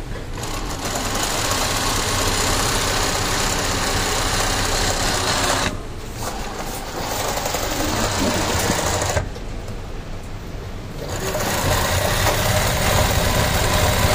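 Shera 20U93 industrial zigzag sewing machine stitching a zigzag seam through cloth, test-running after its shuttle timing was reset. It runs in three spells, stopping briefly about six seconds in and again for about two seconds just after nine seconds in.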